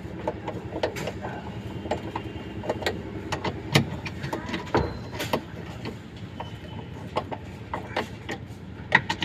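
Irregular metallic clicks and clinks of a socket and ratchet wrench being worked on the stator mounting bolts of an inverter washing-machine motor, over a steady low background rumble.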